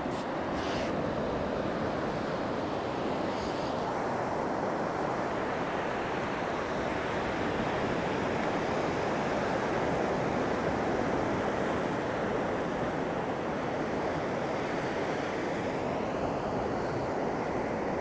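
Black Sea surf washing in over a shallow sandy shore: a steady rush of small breaking waves and fizzing foam, swelling slightly about halfway through.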